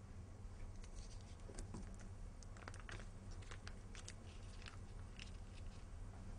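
Foil-lined paper wrapper being unfolded from a block of butter by hand: a faint scatter of short crinkles and crackles, over a steady low hum.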